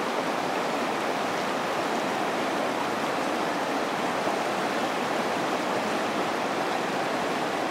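Shallow, rocky river rushing over stones and riffles: a steady, even rush of flowing water.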